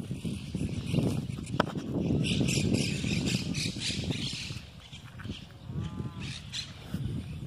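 A large flock of jilgueros, small finches, calling as they fly: many short high chirps overlapping, with one lower call about six seconds in. A louder low rumble of wind on the microphone runs beneath.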